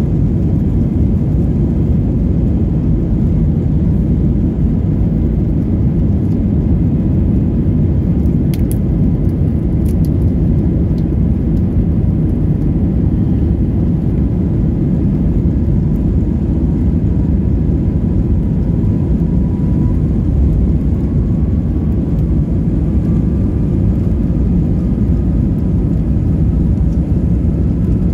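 Steady low roar of an Airbus A320 heard from inside the cabin: engine and airflow noise. A faint whine comes in past the middle and slowly rises in pitch toward the end.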